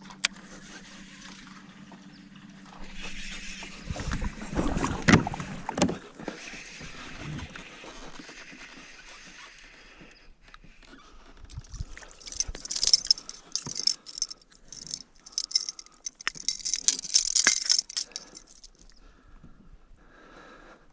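Fishing gear being handled in a kayak: a few knocks and bumps, then several seconds of rapid metallic jingling and clicking.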